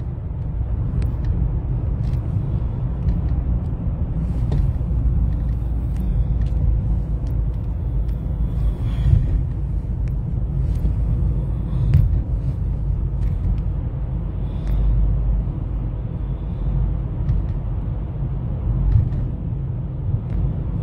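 Steady low road and engine rumble inside a moving car's cabin, with a few light knocks.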